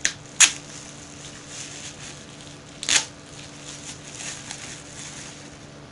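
Clear plastic packaging being handled and torn open, crinkling softly, with two sharp crackles: a loud one about half a second in and another about three seconds in.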